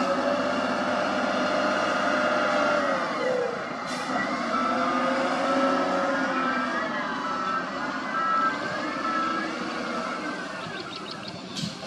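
SDLG wheel loader's diesel engine working under load as it pushes dirt with its bucket, with a whine that rises and falls in pitch as the throttle changes. A brief click about four seconds in and another near the end.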